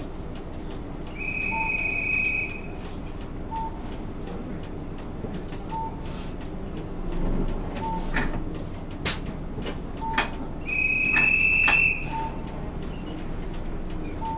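Interior warning tones of a mid-size city bus standing at a stop with its engine idling. A short beep repeats about every two seconds, and a higher steady buzzer sounds twice, each time for about a second and a half. Scattered clicks accompany them.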